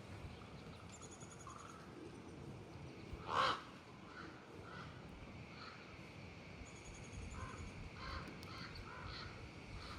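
A crow caws once, loudly and briefly, about a third of the way in, followed by several quieter short bird chirps against a faint steady outdoor background.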